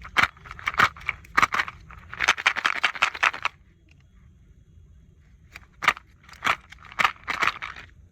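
Crinkling and clicking of plastic packaging being handled: sharp clicks in bursts, with a dense crackling stretch about two seconds in.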